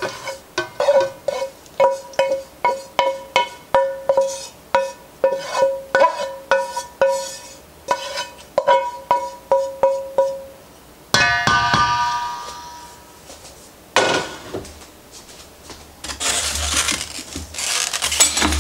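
A skillet knocked again and again against the rim of a stainless steel mixing bowl, about two knocks a second, the bowl ringing with each knock as the sautéed onions and celery are emptied into it. A louder ringing clang comes about eleven seconds in, another knock a few seconds later, then scraping and stirring in the bowl near the end.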